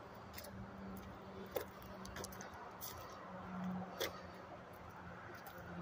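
Faint footsteps on railway ballast gravel: a few scattered, irregular ticks and crunches over a faint steady hum.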